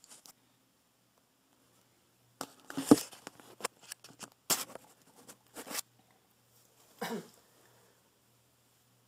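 Handling noise of a camera being set up and a person settling in front of it: a run of knocks, bumps and short rustles from about two and a half to six seconds in, the loudest a thump about three seconds in, then one more brief rustle about seven seconds in.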